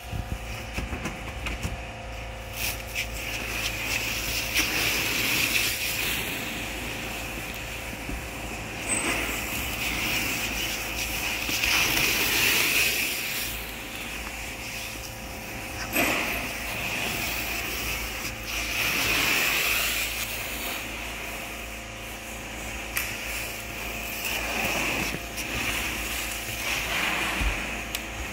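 Stretch film being pulled off a hand-held roll to wrap a pallet, a noisy unwinding that swells and fades every three to four seconds, over a steady low hum.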